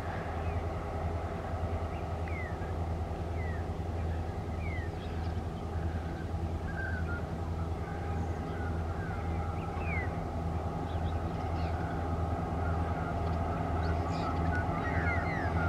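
Two TasRail diesel-electric locomotives hauling an empty coal train, their engines droning with a steady low hum that grows slightly louder near the end. Birds chirp briefly now and then over the engine sound.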